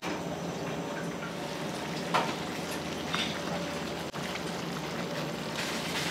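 Braised pork belly sauce bubbling and sizzling in a clay pot over a gas burner, a steady simmer with a couple of sharp ticks about two and three seconds in.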